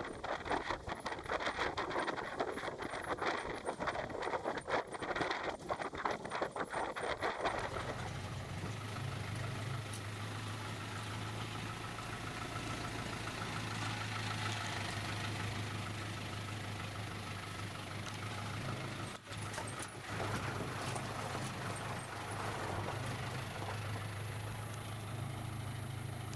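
Rapid irregular clattering for about the first seven seconds, then a steady low engine hum.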